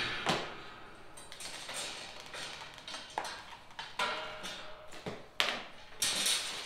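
Metal kennel parts knocking and clinking together as they are handled: a string of about ten sharp, uneven knocks, some with a short metallic ring.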